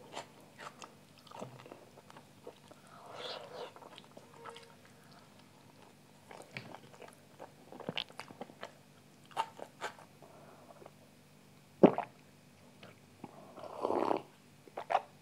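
A person eating by hand: close-up chewing and mouth sounds with scattered small clicks, and one sharp click about twelve seconds in that is the loudest event. Near the end come a few seconds of gulping as buttermilk is drunk from a glass.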